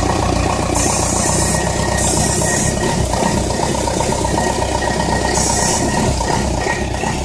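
Diesel engine of a compact loader running, with its starter still engaged by a timer relay after the engine has fired, so a thin steady whine rides over the engine. Three short bursts of hiss come about one, two and five and a half seconds in.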